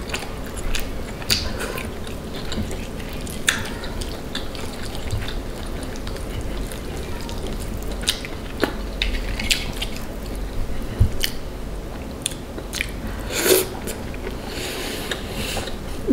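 A person chewing and biting crab leg meat in sauce, with wet mouth sounds and scattered sharp clicks.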